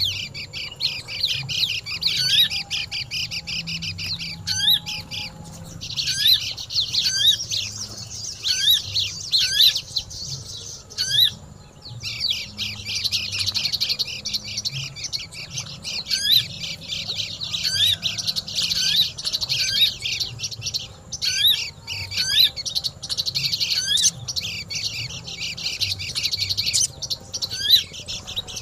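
Sogon and white-eyes (pleci) chirping noisily: a fast, almost unbroken chatter of short high chirps, with brief lulls about five and eleven seconds in.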